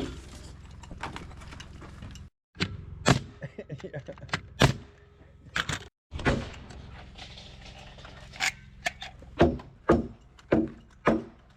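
Irregular sharp knocks and thuds of wood framing work as floor joists are set and fastened. The impacts come in uneven clusters, with a pair of brief dead drop-outs.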